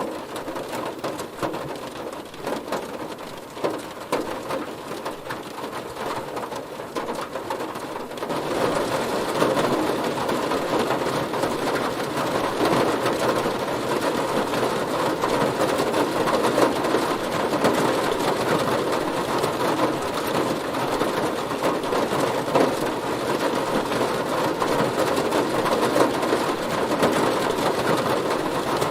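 Heavy rain falling on a car, a dense patter of many separate drop hits. It grows louder and heavier about eight seconds in, then stays steady.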